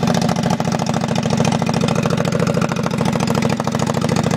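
Lawn mower engine running with no muffler, straight-piped, giving a steady, loud, rapid exhaust crackle of firing pulses.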